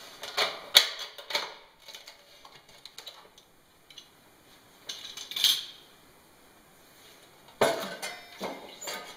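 Metal clanks and rattles as a clamp ring is undone from the stainless-steel sections of a vacuum conveyor and the sections are handled. The clanks come in three clusters: just after the start, about five seconds in, and near the end.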